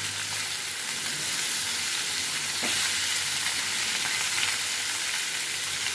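Chopped eggplant, potato and pumpkin sizzling steadily as they fry in a little hot oil in a pan, with a light knock partway through.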